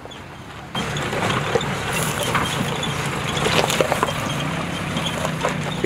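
Maruti Gypsy climbing a rocky trail, its engine running steadily under load while the tyres crunch over loose stones with many sharp clicks and knocks. The sound starts abruptly just under a second in.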